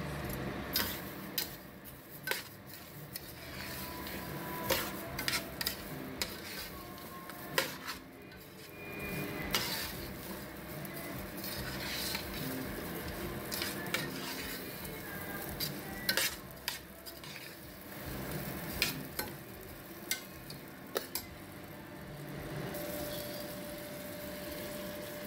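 Metal spoon stirring raw white rice in melted butter in a stainless steel pot, with irregular clinks and scrapes against the pot over a steady sizzle as the rice toasts.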